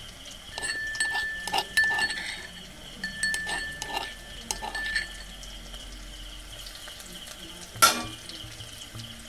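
Steel slotted spatula scraping and clinking against a metal kadai while stirring onions, green chillies and garlic paste frying in oil, with a thin high steady tone during the stirring. One loud sharp clink comes near the end.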